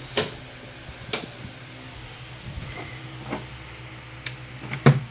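Sharp clicks and knocks from a hand working the mini jeep's dash controls and its loose, red-lit light switch, five in all, the loudest near the end, over a steady low hum.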